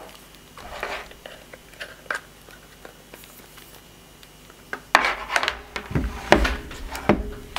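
A coiled power cable being handled: faint rustling and ticks, then from about five seconds in a quick run of clicks and knocks as the cable and its plug are set down on the table by the power brick.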